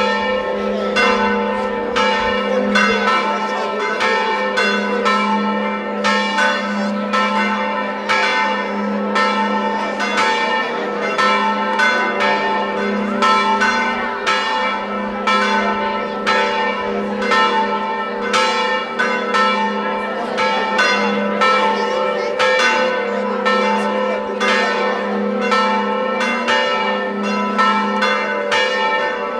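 Church bells ringing continuously, struck over and over in quick, even succession with their tones hanging on between strokes: festive pealing.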